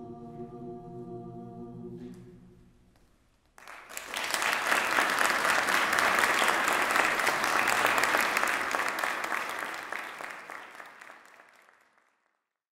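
A mixed choir holds its final chord, which dies away over about two seconds. After a short hush, an audience breaks into applause that goes on for about eight seconds and then fades out.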